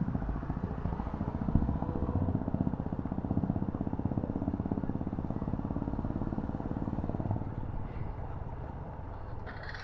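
Motorcycle engine running steadily with an even beat, a little quieter in the last few seconds.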